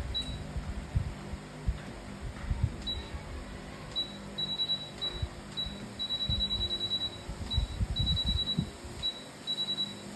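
Short high electronic beeps from a treadmill's control panel, sometimes single and sometimes in quick runs, as buttons are pressed. Dull low thumps come and go underneath.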